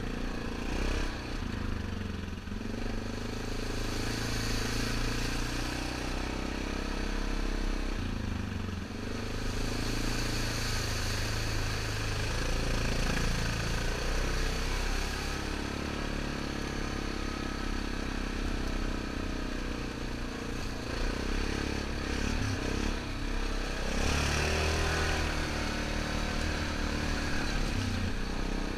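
2003 Yamaha Grizzly 660 ATV's single-cylinder engine running under way on a trail, its revs rising and falling with the throttle.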